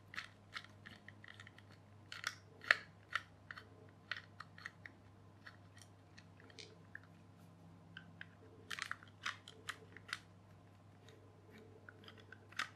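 Small screwdriver clicking and scraping against a clear plastic toy gearbox and its plastic gears as it prises at a gear, irregular sharp little clicks, bunched about two to three seconds in and again around nine seconds.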